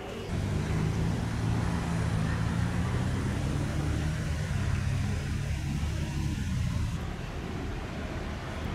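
A steady low engine drone, easing slightly about seven seconds in.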